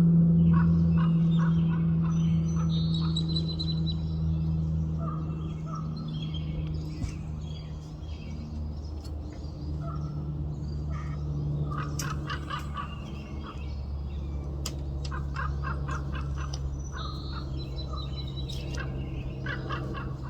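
Bird calls in clusters of short, rapidly repeated notes, with a few higher whistled notes, from a raven and a bald eagle. A steady low hum runs underneath and is the loudest sound, strongest at the start.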